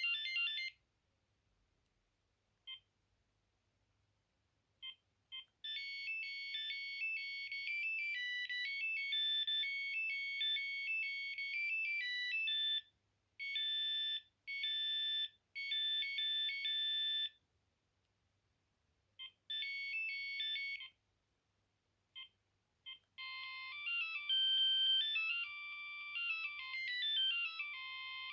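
Maxon MX-6869 mobile phone playing its built-in ringtones one after another: high, bleepy electronic melodies that stop and restart. Single short key beeps sound between them as the next ring type is selected.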